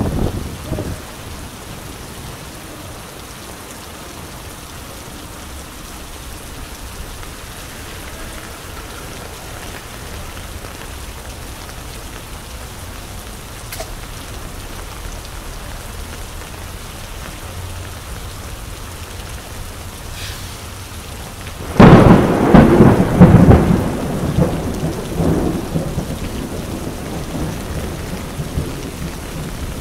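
Steady rain on a wet city street. About three-quarters of the way through a sudden loud rumble breaks in and fades out over several seconds.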